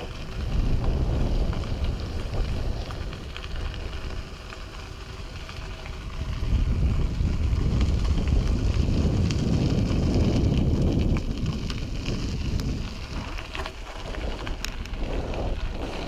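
Wind buffeting the microphone on a moving bicycle, with crackling tyre and track noise underneath. It gets louder about six seconds in, then eases off.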